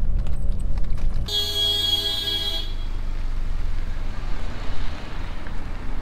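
Car driving with a heavy low road rumble. About a second in the sound changes abruptly, and a steady horn-like tone sounds for about a second and a half. After it a steady low hum with hiss goes on.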